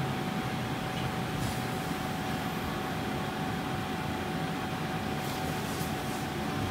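Steady mechanical hum and hiss, with a thin constant whine above it.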